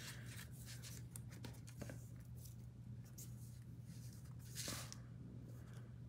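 Faint rustling and soft taps of hands handling white cardstock while a strip of double-sided tear-and-tape adhesive is laid and pressed along it, with a brief louder swish near the end.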